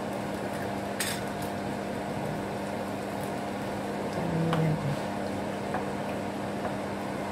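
Wooden spatula scraping and clicking in a non-stick frying pan as raw eggs are stirred into frying noodles, with a sharp click about a second in, over a steady frying sizzle and a low hum.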